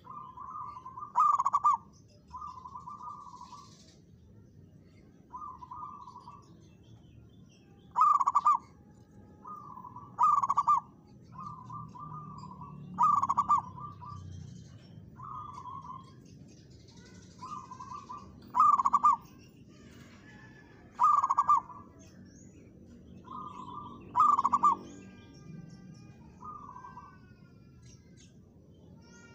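Zebra dove (perkutut) cooing in short repeated phrases. Loud phrases come every two or three seconds, with softer phrases of the same kind between them.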